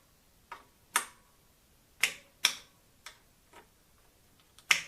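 Presticycle torque key clicking as it releases at its preset torque limit, the sign that the bicycle screw is properly tightened. Sharp clicks come in pairs about half a second apart, several times over.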